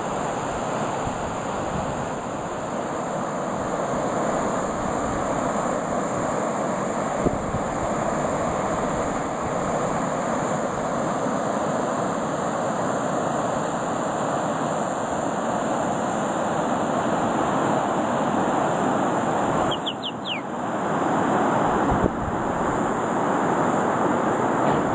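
Steady rushing of river water over rocky rapids, mixed with wind on the microphone. About twenty seconds in, a bird gives a few quick, high, falling chirps.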